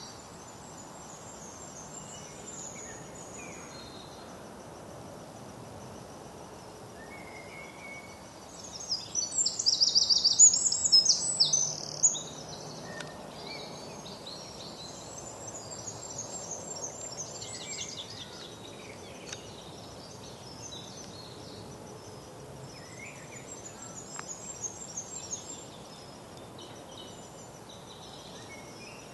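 Woodland birdsong over a steady background hiss: a bird sings a loud, fast, high-pitched song about eight seconds in, and fainter songs and calls from other birds follow through the rest.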